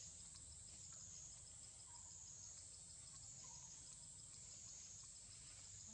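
Faint outdoor ambience of insects, likely cicadas, droning at a high pitch that wavers slowly up and down, with a few faint short calls.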